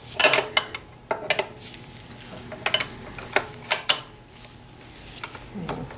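Steel line wrench clicking and clinking against the metal EGR pipe fitting of a Subaru EJ25D engine as it is fitted on and worked: a string of short, light metal clicks at uneven intervals.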